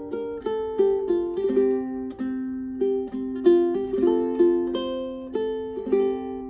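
Joecoey JUT-MX3 solid-koa tenor ukulele being played: a melody of plucked notes with chord tones, a new pluck every half second or so, each note ringing and fading.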